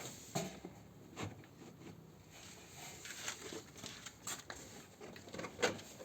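Siding panels being handled and worked into place: a handful of scattered light clicks and knocks.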